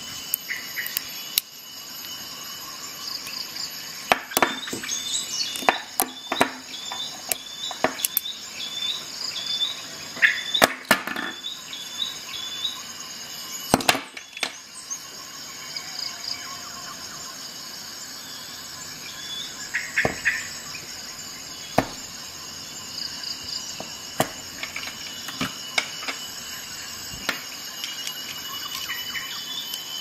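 Steady high insect chirring, with a run of short, quick chirps in the first half. Scattered sharp clicks and taps come throughout, thickest in the first half and loudest near the middle.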